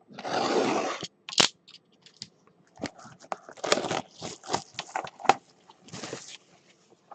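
A sealed trading card box is opened by hand. A loud rip of the wrapping lasts about a second, a sharp snap follows, then comes crinkling and rustling of wrapper and cardboard in short bursts.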